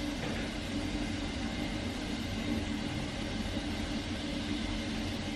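Steady low rumble of a moving vehicle heard from inside the cabin, with no distinct events.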